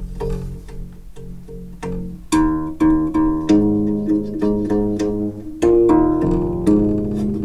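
Handmade metal-framed harp with flatwound bass strings being plucked: a run of quieter repeated plucks, then from about two seconds in louder low notes that ring on and overlap.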